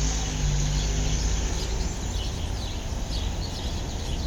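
Birds chirping over and over above a steady low rumble that is strongest in the first couple of seconds.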